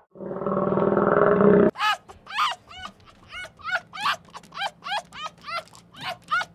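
A loud, deep, rough roar-like animal call lasting about a second and a half, then a sudden change to a run of short, high-pitched yelping or squeaking calls, about two to three a second.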